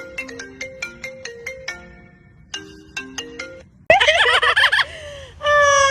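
A phone ringtone plays a quick marimba-like melody of short plucked notes. About four seconds in, a parrot cuts in with a loud warbling call, then a long whistle that falls in pitch.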